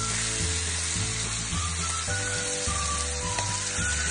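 Steady frying sizzle over background music with a pulsing bass line and a slow melody.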